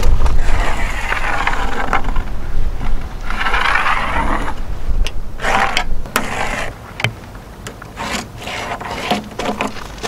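Measuring tools being handled on a wooden tabletop: a steel straightedge and a tape measure scrape and slide across the wood in three longer strokes, followed by several sharp clicks and knocks and shorter scrapes as the tools are shifted and set down.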